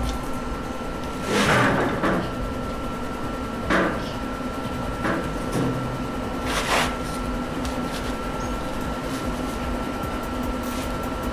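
A few short scrapes and knocks a second or two apart, the first the loudest, over a faint steady hum, from handling the steel trailer frame while trying to roll it back.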